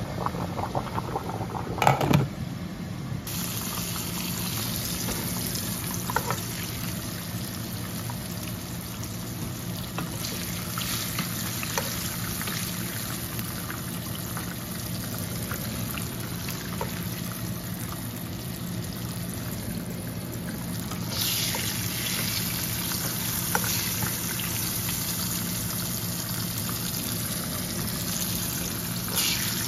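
Tilapia fillets frying in a pan of hot oil: steady sizzling with scattered small pops, a little louder for a while past the middle. It opens with a pot of black beans boiling and a sharp knock about two seconds in.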